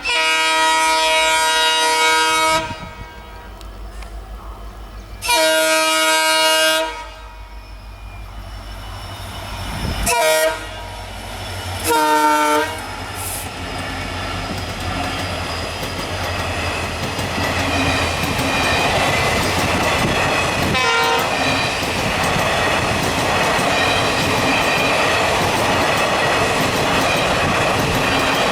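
Twin WDP4D diesel locomotives sounding their horn: two long blasts, then two short toots. After that the train runs by, its wheels clattering over the rail joints, the noise building up and then holding loud.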